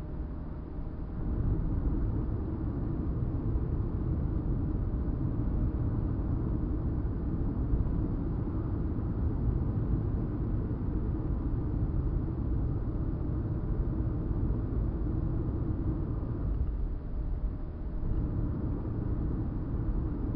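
Car driving at speed, heard from inside the cabin: a steady low rumble of engine and tyre noise that grows louder about a second in and dips briefly near the end.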